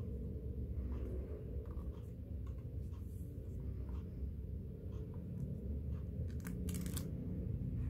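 Stiff card pages of a postcard book being handled, with small paper ticks and rustles and one louder rustle of a page turning about six and a half seconds in. A steady low background sound runs underneath.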